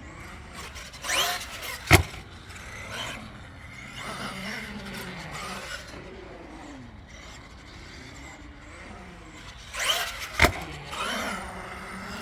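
Electric RC monster trucks running on concrete, their brushless motors whining up and down in pitch as they accelerate and slow. A sharp impact comes about two seconds in and again about ten seconds in, with a short burst of tyre and motor noise just before each.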